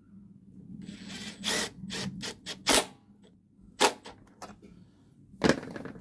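Makita 18V cordless impact driver running briefly to do up a bolt on a petrol lawnmower, followed by several sharp clacks and knocks as the tools are handled.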